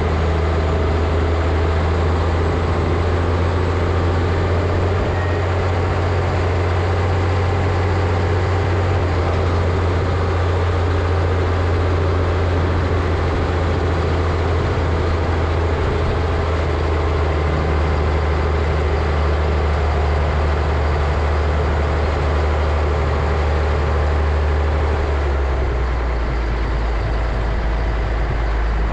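Caterpillar 637C scraper's diesel engine running steadily under load, a heavy, low drone. Its note drops a little near the end.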